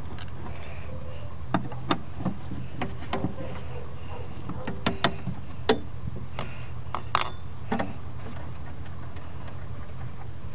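Irregular metallic clicks and clinks of a wrench and the brake master cylinder's mounting nuts being worked off the brake booster studs, over a steady low hum.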